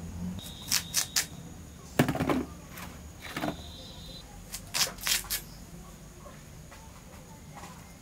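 Chunks of elephant foot yam being cut on a bonti blade and dropping onto a woven bamboo mat: a series of short, sharp taps in small clusters, the loudest about two seconds in, with three more close together around five seconds.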